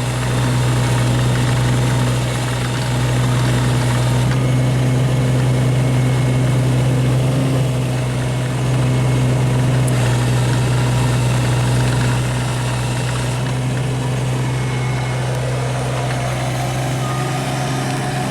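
Kubota U-17 mini excavator's diesel engine running steadily, growing louder for a few seconds at a time, three times. Near the end a higher whine rises and then holds.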